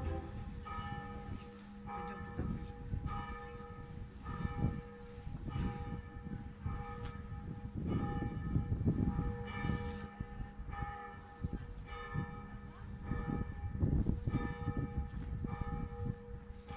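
Church bells ringing, a stroke about every second, each one ringing on into the next, with a low rumble underneath.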